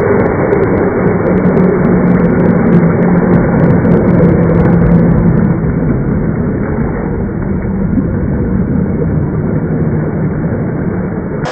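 Electric RC crawler's motor and drivetrain running, slowed down into a low, steady, muffled drone; a little quieter from about halfway through.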